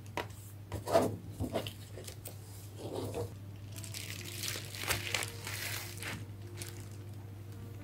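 Bubble wrap crinkling and crackling as hands handle a bubble-wrapped package. The crinkles come irregularly, loudest about a second in and busier from about four seconds on.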